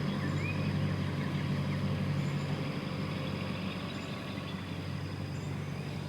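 Engine of the vehicle towing the chicken trailer, running steadily at low speed while backing up. A few faint high chirps are heard near the start.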